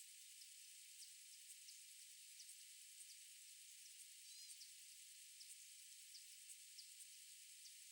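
Near silence: faint steady hiss with scattered tiny high ticks, and one brief high chirp about four seconds in.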